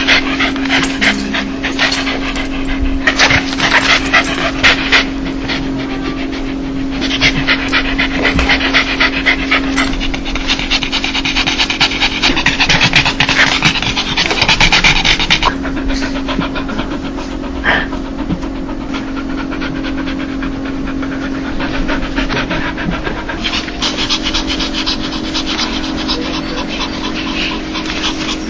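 A dog panting fast in bursts of a few seconds, the quick breathy 'dog laugh' of a happy, excited dog. A steady low hum runs underneath.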